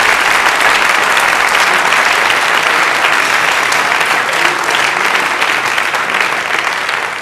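A large theatre audience applauding, a dense steady clatter of many hands clapping that begins to fade near the end.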